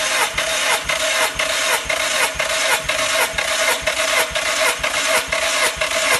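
The Skoda Rapid's 1.6-litre CFNA four-cylinder engine is being cranked on its starter motor for a compression test of the first cylinder: a steady starter whine over an even, rhythmic beat. The gauge builds to about 15 kg/cm² in that cylinder.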